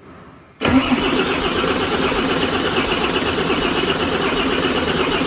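Starter cranking a Volvo FH13's D13 inline-six diesel for a compression test, cutting in abruptly under a second in and running steadily. The test is being run because the sixth cylinder has low compression.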